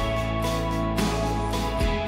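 Music: sustained chords over a bass line that changes note about once a second.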